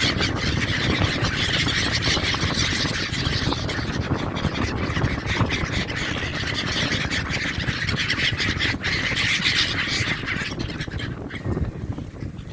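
A flock of seabirds calling all at once in a dense, overlapping chorus, with a steady low rumble underneath. The calling thins out near the end.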